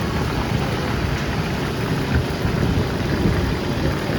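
Steady, fairly loud background din of a busy night-market food stall.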